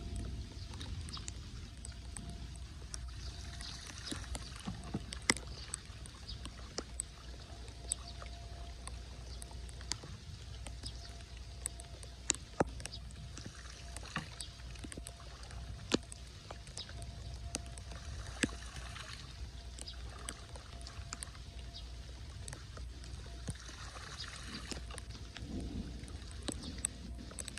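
Floodwater splashing and sloshing as hands pull wet leaves and debris out of a clogged street drain, in bursts over a steady low rumble, with scattered sharp clicks.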